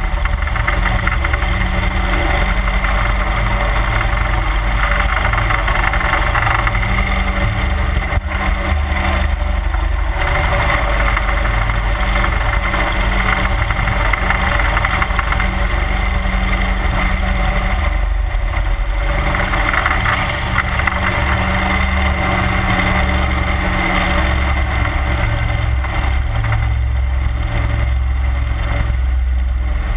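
31 hp Mud Buddy HyperDrive surface-drive mud motor running steadily at cruising speed, pushing an aluminum jon boat along.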